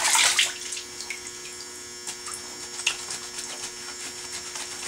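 A brief splash of bathtub water at the start, then faint swishing and small knocks as a gun part and washcloth are handled, over a steady electrical hum.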